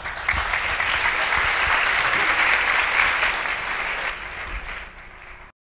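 Audience applauding, starting at once and holding steady, then fading over the last second and a half before cutting off.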